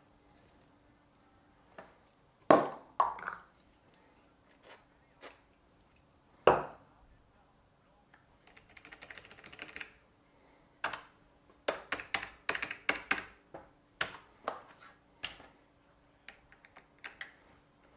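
Scattered plastic clicks and taps from a Logitech G613 mechanical keyboard's Romer-G switches and keycaps being handled and pressed. A quick run of faint clicks comes about nine seconds in, then a busy cluster of key clicks from about eleven to fifteen seconds.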